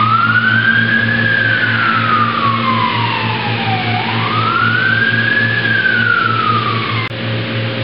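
Fire truck siren wailing in two slow rise-and-fall cycles, over a truck engine running. The siren cuts off abruptly near the end.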